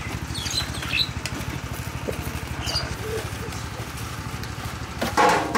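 An engine running steadily in the background with an even, fast pulse, over light clinks and scrapes of a serving ladle against a steel pan and foam takeaway boxes as curry is dished out. A brief voice sounds near the end.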